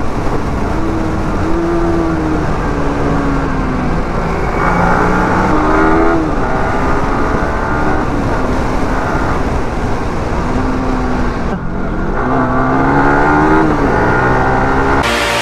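Yamaha R15 V3's single-cylinder engine revving up and easing off again and again as the motorcycle accelerates through the gears, over steady wind rush at riding speed.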